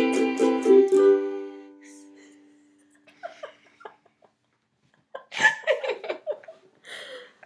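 Ukulele strummed in quick chords for about a second, ending on a chord that rings out and fades away over the next two seconds. Soft voices follow in the second half.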